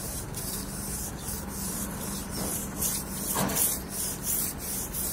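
Stiff hand brush scrubbing back and forth over a concrete ledge, about three scratchy strokes a second. The brushing takes mould and dirt off the wall so the limewash will hold.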